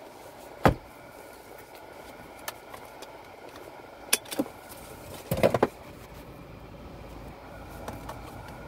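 Steady low hum heard from inside a car cabin, broken by a few sharp clicks and knocks: a loud one about a second in, two more near the middle, and a quick cluster just after halfway.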